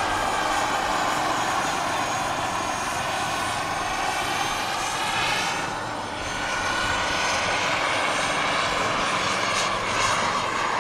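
Large radio-controlled scale Bell helicopters flying in formation: a steady high whine of their drive and rotors, drifting slowly in pitch as they move, with a brief dip in level about six seconds in.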